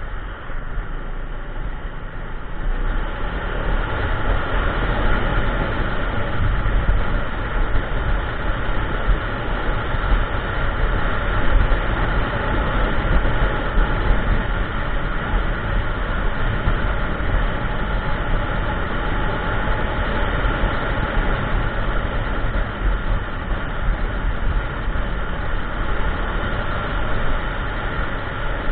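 Kymco Xciting 400i maxi-scooter under way at road speed: a steady rush of wind on the mount-side microphone with the engine's rumble underneath, getting louder about three seconds in.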